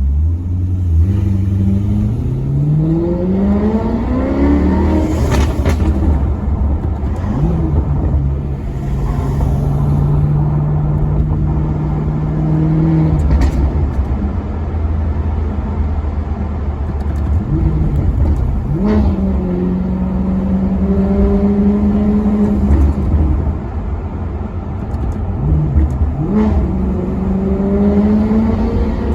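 Maserati Quattroporte Sport GT's V8 engine under way. It accelerates with a rising pitch, holds steady between gear changes, and gives quick revving blips at the shifts, with another climb in revs near the end.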